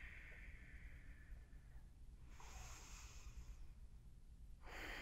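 Near silence with a person's faint, slow breaths: one fading out over the first two seconds, another about two and a half seconds in, and a third starting near the end.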